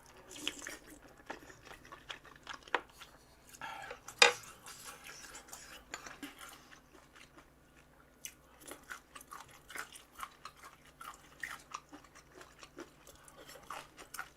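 A person chewing and crunching food close to the microphone: irregular crisp bites and chews, the loudest a sharp crunch about four seconds in, with a short lull a couple of seconds later before the chewing picks up again.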